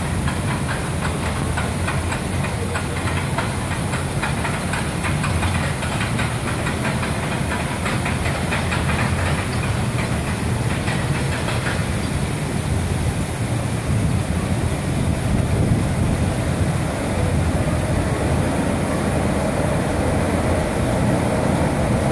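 Steel roller coaster train running along its track: a steady rumble with a rapid clatter through the first half, over a steady hiss.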